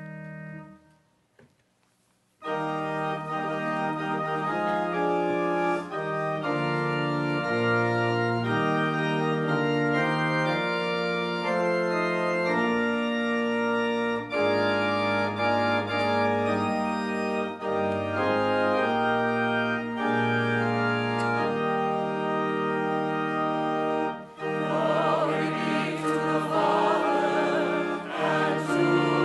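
Pipe organ playing sustained, changing chords, a hymn introduction that starts after a short silence. About 24 seconds in, a choir comes in singing over the organ.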